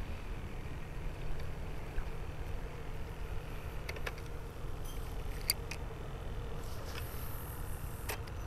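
A few sharp clicks and ticks from a spinning reel and rod being handled while a live bait is cast, several of them about four seconds in and more near the end, over a steady low rumble.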